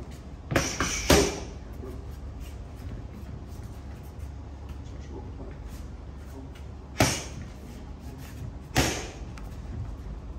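Punches smacking into boxing focus mitts: a quick pair of sharp smacks about a second in, then two single smacks near seven and nine seconds in, over a steady low hum.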